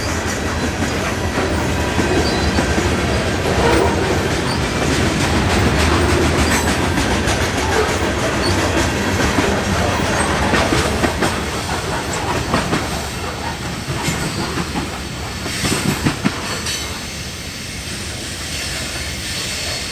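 Passing train, its wheels clacking rhythmically over the rail joints with some faint wheel squeal. It grows quieter over the last several seconds as it moves away.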